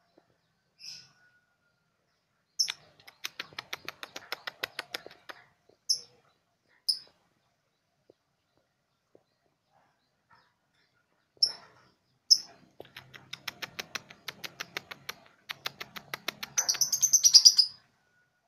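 Young three-month-old lovebird practising its ngekek: sharp single chirps broken by two long runs of rapid, evenly spaced ticking notes. The second run ends in a louder, harsher chatter near the end.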